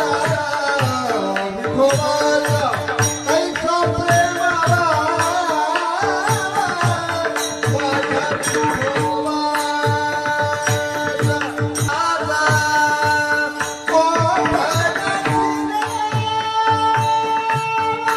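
Marathi varkari bhajan: a solo voice sings long, ornamented, sliding phrases over steady held drone tones and a regular drum beat.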